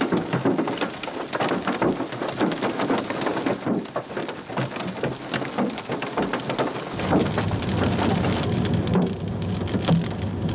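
Hailstones, some up to quarter size, drumming on a vehicle's roof and windshield in a dense, irregular clatter of hits. About seven seconds in, the hits thin out and a steady low rumble comes in under them.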